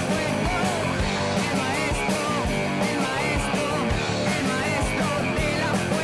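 Rock music with a steady beat.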